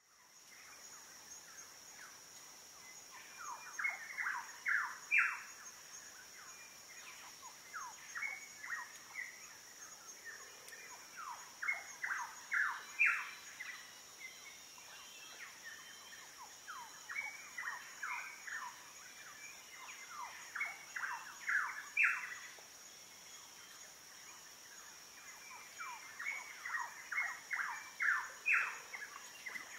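A bird repeats a song phrase of several quick down-slurred whistled notes, growing louder, every four or five seconds, over a steady high insect drone.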